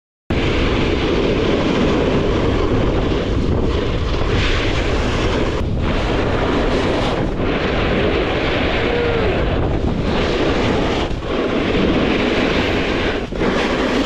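Loud, steady rush of wind on the microphone while skiing fast downhill, with skis sliding over snow beneath it. It starts abruptly just after a silence and dips briefly a few times.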